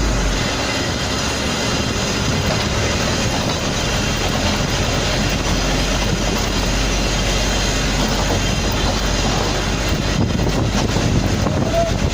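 Steady, loud vehicle noise: a dense, unbroken rumble and rush of sound with no clear changes.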